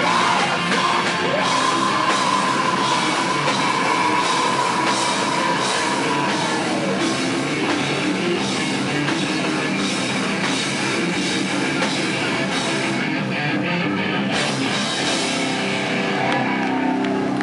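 Live heavy metal band playing loud: electric guitars over a drum kit, with a high note held through the first several seconds.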